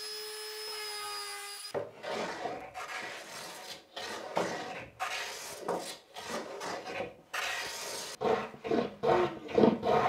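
Random orbital sander running with a steady whine, cut off abruptly under two seconds in. Then a small hand plane scraping along plywood edges in repeated short strokes, breaking the edges.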